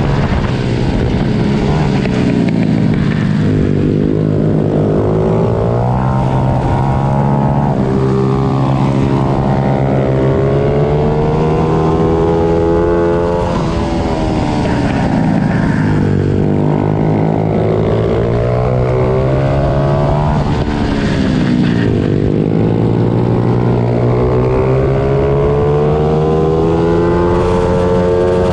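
Pit bike engines at race pace, revving up and dropping back again and again as the riders shift and ease off. At times several bikes are heard together.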